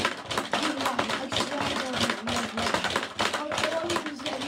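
Rapid, irregular plastic clacking and rattling of a Hungry Hungry Hippos game being played: hippo levers slammed again and again as marbles are gobbled.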